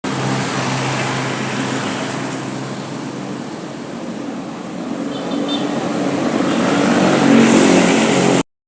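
Large bus diesel engine running, a steady low hum with noise above it, growing louder over the last couple of seconds.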